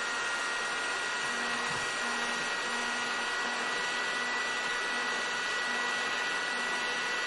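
Hair dryer running steadily: a constant rush of blown air with a steady high motor whine.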